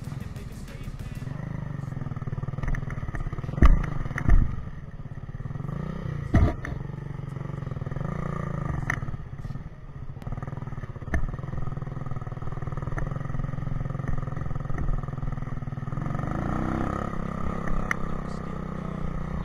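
Motorcycle engine running at low speed on a rough, rocky dirt track, its pitch going up and down with the throttle and climbing near the end. Three loud knocks from the bike going over bumps and stones come at about four, four and a half and six and a half seconds in.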